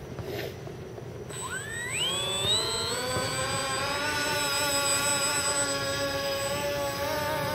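Small multirotor's electric motors and propellers whining up in pitch over about a second and a half, then holding a steady high whine as they run at speed.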